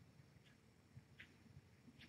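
Near silence: faint room hum with a few soft, faint ticks of a cat licking its fur while grooming.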